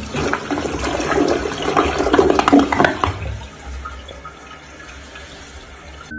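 Rushing, splashing water, loud for about three seconds and then dying down to a softer hiss.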